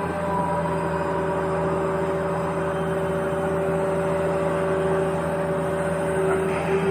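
Small electric motor and gearbox of a radio-controlled toy excavator, whining steadily at an even pitch.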